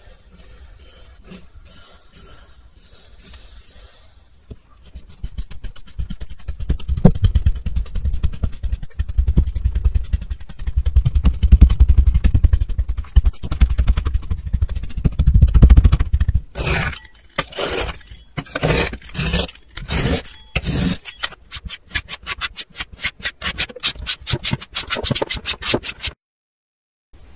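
Kinetic sand being pressed and stamped with a hand stamp tool: faint crunching at first, then louder scraping crunches with dull thuds. Later come several sharper separate crunches, then a fast, even run of small ticks.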